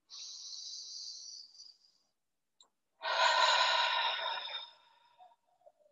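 A woman's deep breath. A slow inhale through the nose lasts about two seconds, then after a pause comes a louder exhale through the open mouth, about a second and a half long, that fades away.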